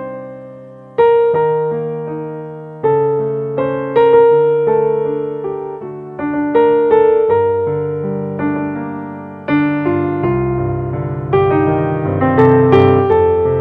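Slow ambient piano music: notes and chords struck every one to three seconds, each ringing out and fading before the next.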